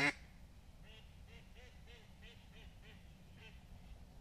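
Mallards quacking: a run of short, faint quacks, a few a second, beginning about a second in.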